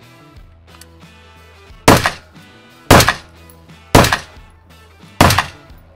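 AR-15 rifle fired unsuppressed: four loud, sharp shots about a second apart, each trailing off in a short echo.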